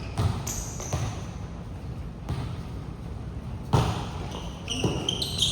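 A basketball bouncing on an indoor court, a few separate thumps, with short high-pitched sneaker squeaks near the end.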